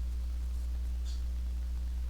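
Steady low hum with a few faint higher tones over it, and a brief faint high hiss about a second in.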